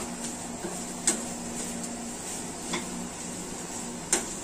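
A metal spoon stirs and scrapes onion and grated coconut roasting in a frying pan, with sharp clinks against the pan about a second in, near three seconds and near the end. A faint steady hum runs underneath.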